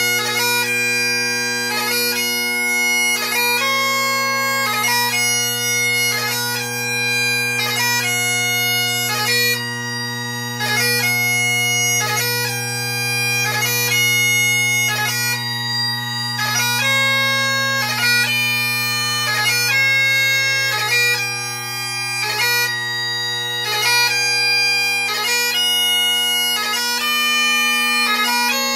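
Great Highland bagpipe playing piobaireachd: steady drones sound under a slow chanter melody, the notes changing about once a second and each change broken by quick gracenote embellishments.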